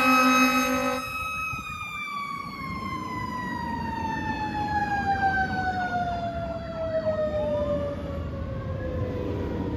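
Fire engine air horn blasting, cut off about a second in, as the Federal Q mechanical siren of a 2014 Pierce Arrow XT engine winds down in one long slow falling wail. A fainter rising siren wail joins near the end.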